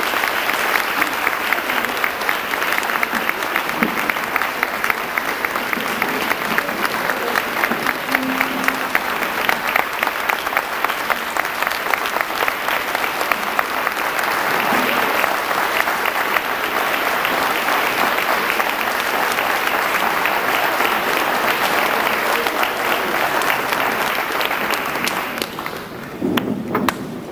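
Audience applauding, a dense steady clapping of many hands that keeps up for about 26 seconds and dies away near the end.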